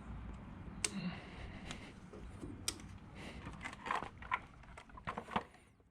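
Scattered sharp clicks and light knocks of parts being handled and fitted back together during reassembly, irregular and tapping, fading out at the very end.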